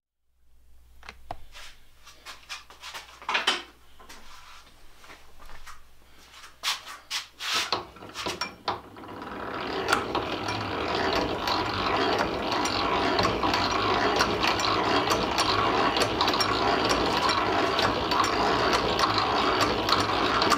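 Antique Silver Mfg Co hand-cranked drill press drilling a 3/8-inch hole into steel rail without a pilot hole. Scattered clicks and knocks come first. From about eight seconds in, the cranked gears and feed ratchet run steadily as the bit cuts, a continuous grinding full of rapid clicks that grows louder.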